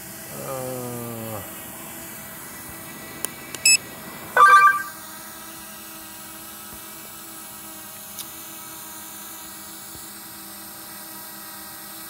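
Hubsan Zino Mini Pro drone hovering, its propellers giving a steady high whine. Short tones sound about three to four and a half seconds in, the loudest a brief pitched burst near four and a half seconds.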